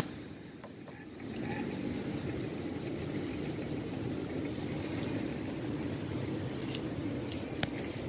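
Handling noise: clothing brushing over the microphone and a backpack being rummaged, with short scrapes and clicks, over a steady low rumble.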